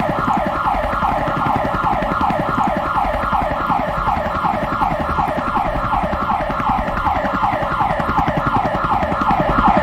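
Police siren in a fast yelp, its pitch sweeping down about three times a second without a break, over a low rumble.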